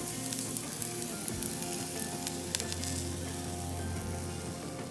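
Diced red onions sizzling in oil in a frying pan as a chickpea-flour and egg batter is poured over them, with scattered crackles.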